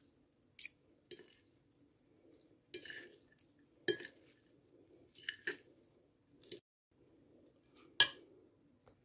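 Two metal forks tossing a grated beetroot salad on a plate, with scattered clinks and scrapes of the forks against the plate, a sharper one about four seconds in and the loudest near the end.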